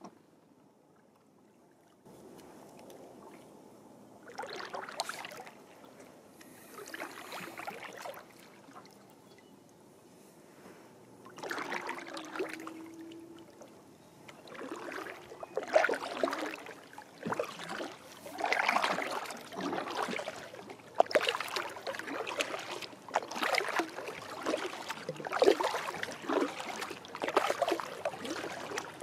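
Kayak paddle strokes splashing and dripping in calm lake water. They come a few seconds apart at first and then settle into a steady stroke about once a second from about halfway through.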